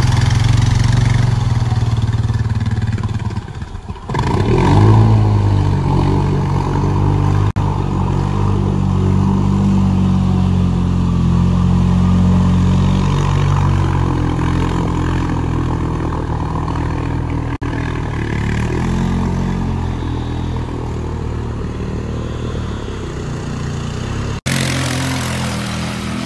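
Four-wheeler (ATV) engine revving hard under load as the quad churns through water and mud, its pitch rising and falling. The engine sound drops off about four seconds in and then revs back up, with a few sudden breaks where the clips change.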